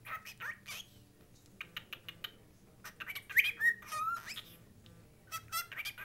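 Grey cockatiel chattering in several bursts of short chirps and sliding whistled notes, the loudest run about three seconds in.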